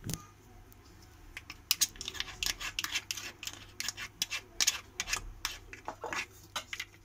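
Two plastic measuring scoops scraping and clicking against each other, a quick irregular run of sharp clicks and scrapes starting about a second and a half in.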